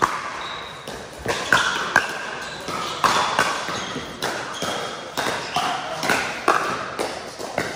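Pickleball paddles striking a plastic pickleball in a fast rally at the net: a string of sharp pops, roughly one or two a second, echoing in a large indoor hall.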